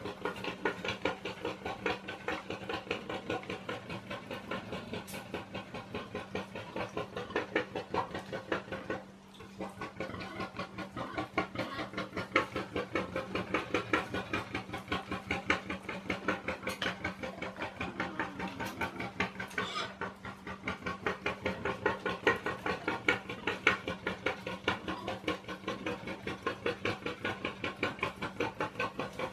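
Rutting male warthog making his courtship 'train noise': a fast, rhythmic chugging grunt at about three pulses a second, broken by a brief pause a third of the way in.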